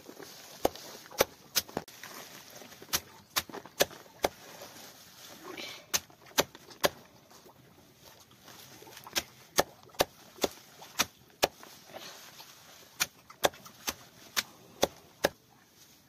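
Heavy knife chopping fresh leafy pig fodder against a sack laid on the ground: sharp strokes two or three a second, in runs broken by short pauses.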